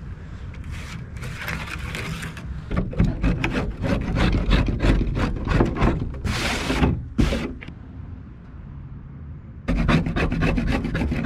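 A hand blade scraping along the rusted, rotted bottom edge of a steel-faced door in quick repeated strokes, with a short pause about two-thirds of the way through.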